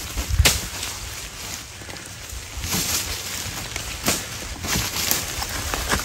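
Dry leaf litter and twigs crackling and rustling under a Komodo dragon and its struggling prey, in irregular sharp snaps over a low rumble.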